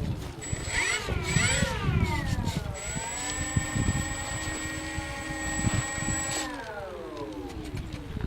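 Twin electric motors and propellers of an Avios Albatross HU-16 RC flying boat whining with the throttle: pitch dips and rises, holds steady for a few seconds, then falls away as the throttle comes back about six and a half seconds in.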